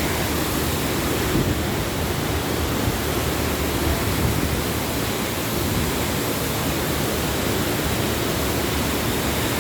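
Wahkeena Falls: water pouring down the cascade, a steady, unbroken rushing noise.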